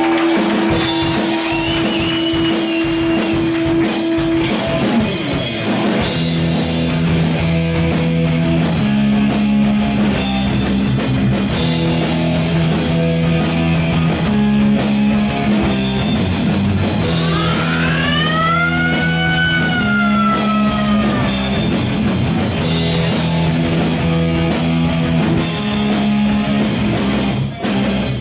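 A metal band playing live: distorted electric guitars and bass holding and changing chords over a drum kit, with no vocals. About two-thirds of the way through, a high note bends up and back down over a few seconds.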